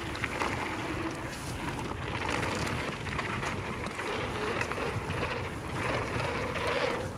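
Wind rushing over the microphone, with a mountain bike's tyres rolling fast over hard-packed dirt and gravel. Faint clicks and rattles come from the bike as it runs over the rough surface.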